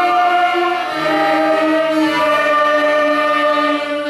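Children's school string orchestra playing slow, long held notes together, violins bowing to the fore, with a lower held line coming in about a second in.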